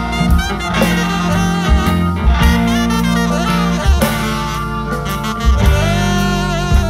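Live band playing an instrumental passage, a saxophone leading a wavering melody over electric guitars and drums.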